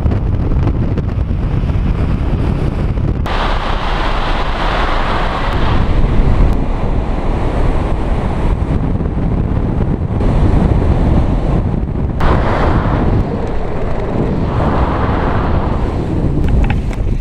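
Loud wind rushing over an action camera's microphone on a speedflyer in fast flight, a heavy buffeting rumble that swells and eases several times and changes abruptly at a few points.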